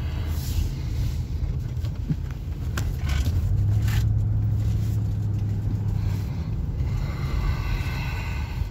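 Engine and road noise of a moving Ford vehicle heard from inside the cab, a steady low drone that grows louder for about three seconds in the middle. A few brief clicks sound over it.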